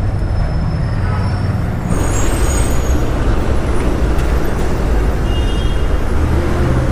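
TVS Apache RTR 160 single-cylinder motorcycle engine running, with road noise that gets louder about two seconds in.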